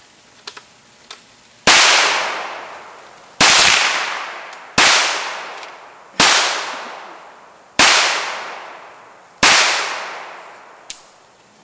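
Six gunshots fired at a steel spinning target, spaced about a second and a half apart. Each shot is followed by a long fading tail. A few faint clicks come before the first shot and after the last.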